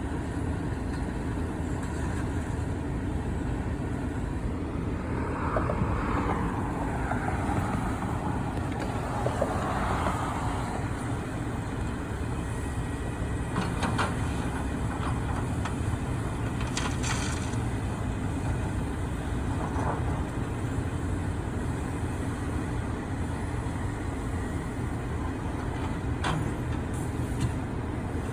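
Heavy diesel vehicle engine running steadily, with a hissing swell that rises and falls about five seconds in and a few sharp knocks or clanks later on.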